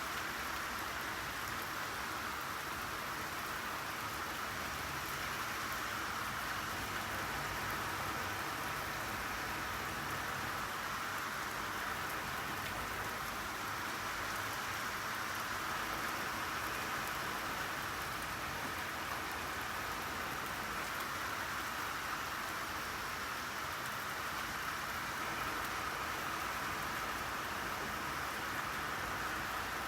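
Steady rainfall pattering on a surface, an even hiss of many drops without letting up.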